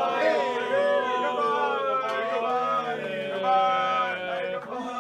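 A roomful of people shouting a drawn-out 'kanpai!' together as a toast, many voices overlapping, tailing off near the end.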